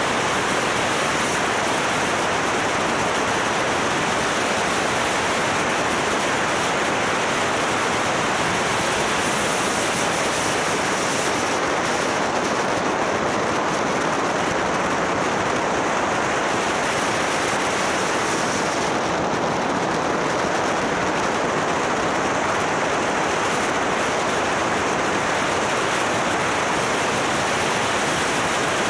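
Steady rushing wind over a motorcycle-mounted camera's microphone at riding speed, with no clear engine note standing out.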